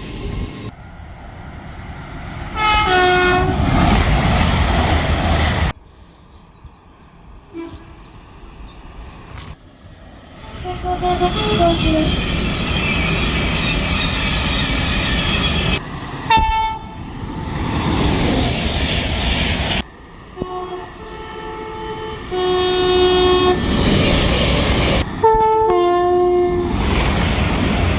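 Train horns sounding in a string of short clips spliced together: several pitched horn blasts, some in two alternating notes, over the rumble and wheel clatter of passing trains, with each clip cut off abruptly.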